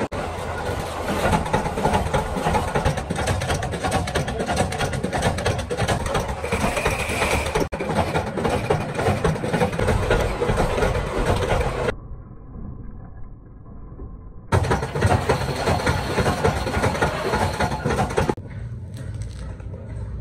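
Metal workshop noise from making screw shells: a small power press clattering and knocking as it forms sheet-metal parts, then a bucket of metal screw shells tipped out with a clatter. The clatter drops to a duller, quieter stretch for a couple of seconds about twelve seconds in.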